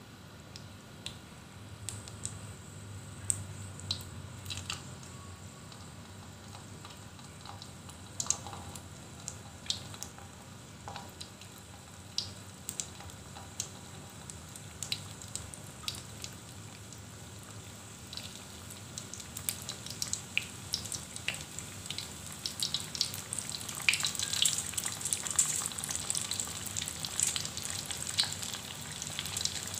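Pastel pastries deep-frying in hot oil in a wok: a steady sizzle with scattered pops and crackles, growing busier and louder in the last third.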